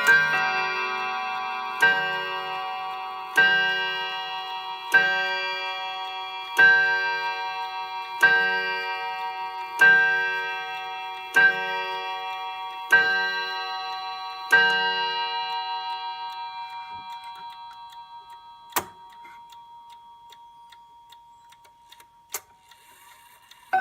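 Hermle Tradition triple-chime clock striking the hour on a tuned chime rod: the same ringing note struck about ten times, roughly a second and a half apart, each stroke ringing on into the next. After the last stroke the note dies away slowly, and two sharp clicks follow in the second half.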